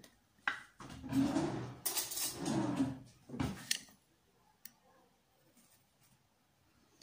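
Glass salt jar and teaspoon being handled: scraping, rattling and light clinks for about three seconds as the jar is opened and the spoon goes into the salt, then quiet apart from one small click.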